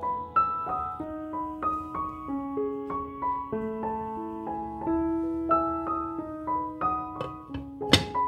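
Piano music, a run of single held notes. Near the end comes a sharp clink as a glass lid is set onto the frying pan.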